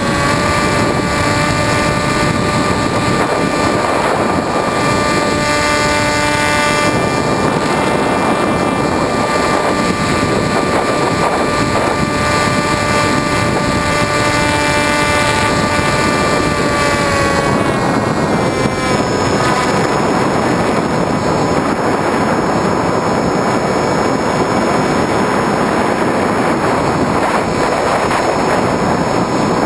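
Electric motor and propeller of a Skywalker 1900 FPV plane whining steadily in flight over a heavy rush of wind, heard from the plane's onboard camera. About 18 seconds in the whine steps down in pitch and fades as the throttle is eased, leaving mostly wind.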